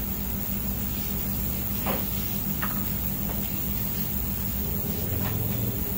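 Steady low electrical hum and hiss, with a few faint ticks about two seconds in, again just after, and once more near the end.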